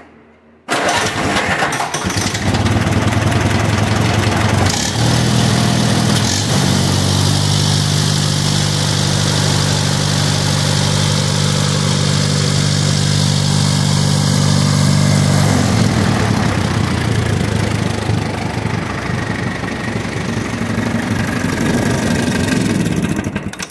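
Allis-Chalmers WD tractor's four-cylinder gasoline engine starting about a second in and running steadily, turning the newly belted alternator. It cuts off abruptly near the end as the magneto is grounded to kill it.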